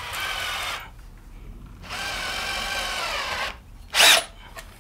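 Cordless drill-driver running in two bursts, the second a little longer, driving a screw through a wooden batten into a wall plug. A short, sharp, loud noise comes near the end.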